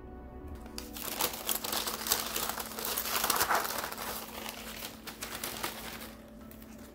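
Brown paper bag crinkling and rustling as dried herb stems are handled inside it, with many small crackles, starting about a second in and fading out near the end. Soft background music plays underneath.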